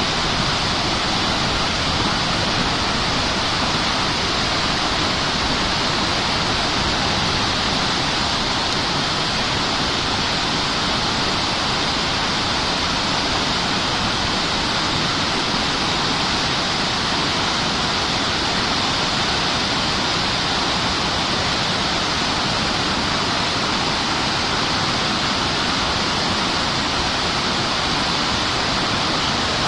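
Waterfall on a mountain river: a steady, loud rush of falling water.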